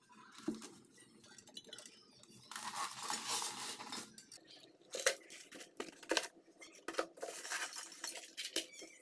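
Hard objects being handled on a work table, with clinks and knocks, the sharpest about five seconds in. A stretch of hissing rustle runs for about a second and a half, starting about two and a half seconds in.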